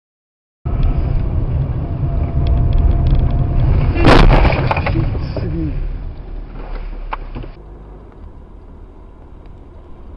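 Dashcam recording of a moving vehicle: loud road and engine noise with a sharp, loud bang about four seconds in. About seven and a half seconds in it cuts to quieter road noise from another vehicle.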